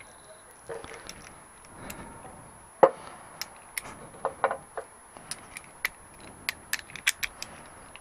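Metal hand tools clinking and knocking as they are handled on a workbench: scattered sharp clicks, one louder knock about three seconds in, then a quicker run of clicks.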